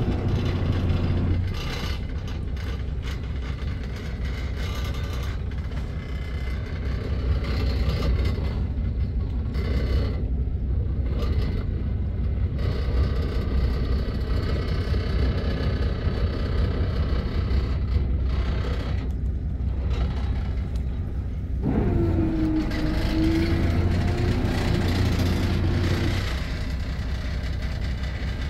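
Fishing boat's engine running steadily, a low rumble, with a higher hum that joins during the first second and again from about 22 to 26 seconds in.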